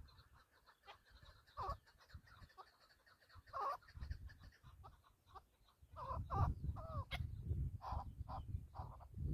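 Chukar partridge calling: a few spaced clucking notes, then a quicker run of chuk notes from about six seconds in. A low wind rumble on the microphone comes in with the faster calling.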